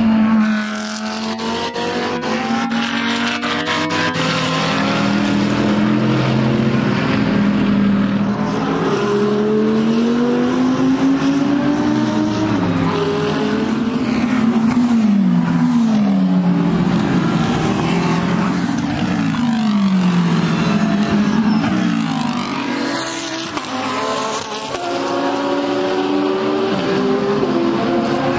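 GT3 race cars, among them the Audi R8 LMS EVO II with its V10, running hard through a corner. The engine note climbs and drops back several times as the cars accelerate and upshift, and it falls away on the braking and downshift phases.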